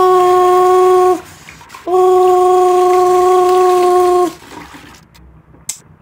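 Two long, steady beeps at one pitch, the first about a second long and the second about two and a half seconds, like a washing machine's end-of-cycle signal.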